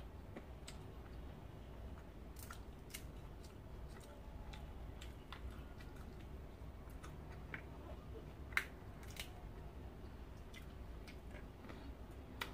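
Peanut shells cracking open between the fingers: faint, scattered crisp snaps, the loudest about two-thirds of the way through, with quiet chewing of the nuts.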